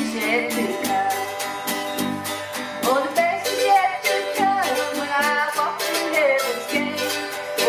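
Live country-gospel music: a woman singing a melody over strummed acoustic guitar, with electric bass and mandolin playing along at a steady strumming rhythm.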